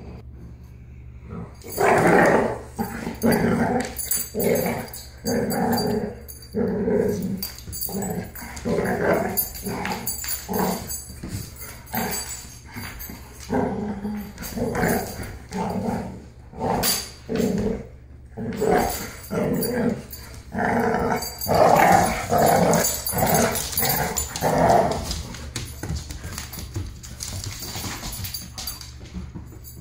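Caucasian shepherd and boxer-mix puppies growling as they play-fight: a long run of short growls, about one or two a second, starting about two seconds in and dying away near the end.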